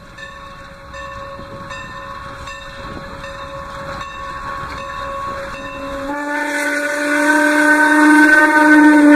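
Norfolk and Western 4-8-0 steam locomotive approaching with a regular beat. About six seconds in, its steam whistle sounds a long, loud blast of several pitches at once, growing louder as the engine draws alongside.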